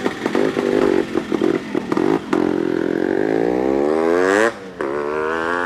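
Yamaha RX135's single-cylinder two-stroke engine on a test ride. It runs choppily at low revs for about two seconds, then accelerates with a steadily rising note. The revs drop suddenly at a gear change about four and a half seconds in, then climb again.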